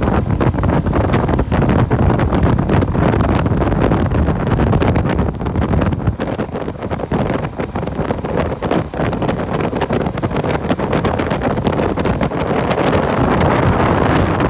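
Wind rushing and buffeting over the microphone on a moving motorbike, over the bike's running and road noise. The rush eases a little for a few seconds around the middle.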